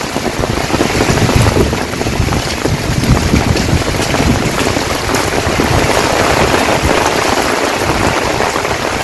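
Heavy rain falling steadily, a dense hiss, with wind buffeting the microphone in an uneven low rumble.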